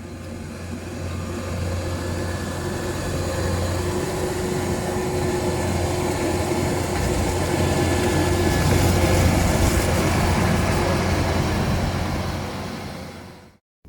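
Engine running steadily with a strong low hum and a constant hiss, growing louder over the first few seconds and fading out near the end.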